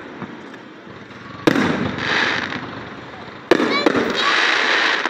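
Fireworks going off: a bang about a second and a half in, then hissing and crackling, and a second bang about three and a half seconds in, followed by a longer stretch of hissing and crackling.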